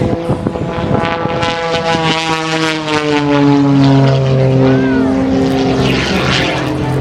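Propeller airplane flying past, its engine-and-propeller drone dropping in pitch as it goes by, then holding steady at the lower pitch.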